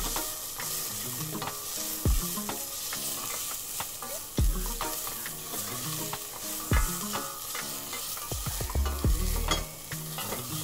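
Onions, ginger, chilli and garlic sizzling as they fry in hot coconut oil in a stainless steel saucepan while a spoon stirs them. A sharp knock comes every couple of seconds.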